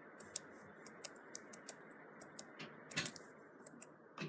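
Faint, irregular light taps and clicks, a few a second, with a louder knock about three seconds in: fingers tapping and handling a tablet.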